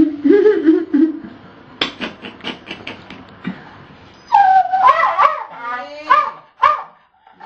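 West Highland white terrier whining and whimpering: a low, wavering whine at first, then louder, higher whines from a little past halfway.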